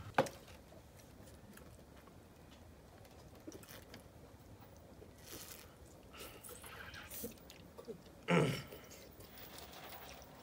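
Faint eating sounds: people chewing steamed eel, with small scattered clicks and a sharp click just after the start, like chopsticks on a metal pan. A brief louder voice-like sound comes about eight seconds in.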